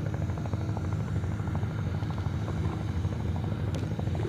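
Boat engine running steadily with a rapid low chugging.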